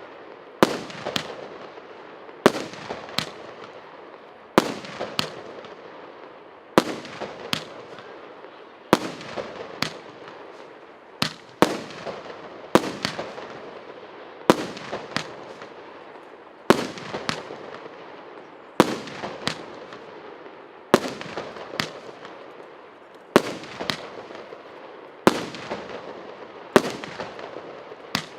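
24-shot firework battery with 1.25-inch tubes firing a steady series of shots. Sharp bangs come in pairs about every two seconds, with a fading crackle and hiss between them.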